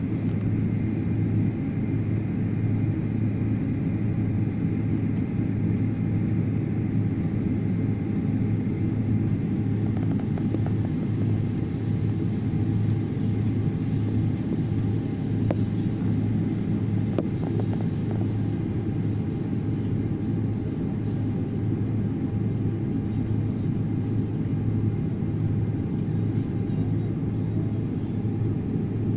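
Steady low rumble in the cabin of a Boeing 777-200 taxiing, its engines running evenly with a deep steady hum and no build-up to take-off thrust.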